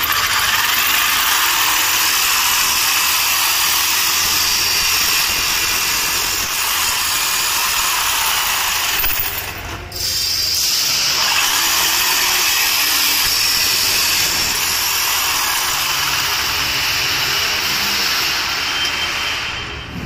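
DeWalt jigsaw cutting through perforated sheet-steel cable tray, the blade sawing steadily through the metal. The cutting breaks off for a moment about halfway, then carries on.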